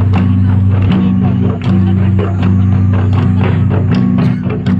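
Music for a traditional dance: drum strikes over a steady low drone.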